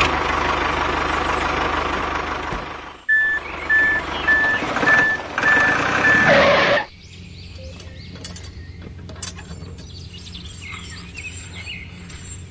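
Vehicle reversing alarm beeping about twice a second over loud vehicle noise. The beeping and noise cut off abruptly about halfway through, leaving a low steady hum.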